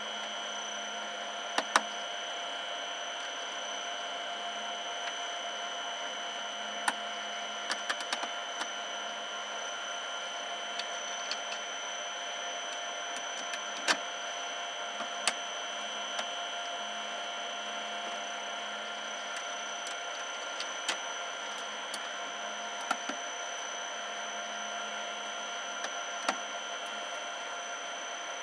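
Scattered sharp clicks and knocks as a small car speaker is handled and fastened into the plastic roof lining of a loader cab, over a steady hum with a few high whining tones.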